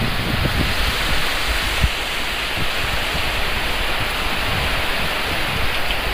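Heavy tropical downpour falling on the ground and road, a steady dense hiss of rain, with irregular low thumps through it.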